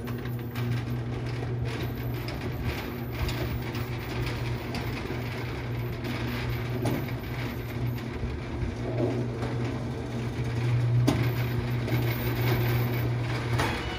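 Motorized steel roll-up shutter door opening: a steady motor hum with the metal slats rattling and clicking as the door rolls up. It stops near the end as the door reaches the top.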